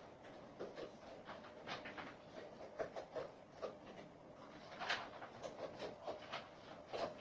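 Dog eating: irregular crunching and chewing clicks, several a second, with a louder crunch about five seconds in.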